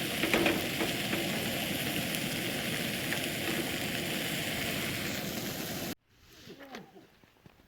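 Breakfast hash sizzling in a frying pan, a steady crackling hiss that cuts off abruptly about six seconds in.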